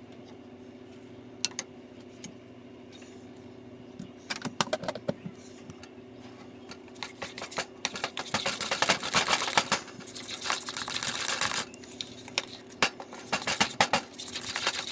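A spoon stirring and scraping a slime mixture of glue, toothpaste and sugar in a container. Scattered clicks a few seconds in build to a dense run of rapid clicking and scraping around the middle, then more clicks near the end, over a steady low hum.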